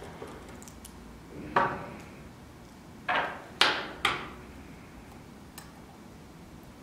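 Small hand tools clinking and knocking against a hard work surface, four sharp knocks over a few seconds with a faint tick later, as the screwdriver is swapped and used on the phone's screws.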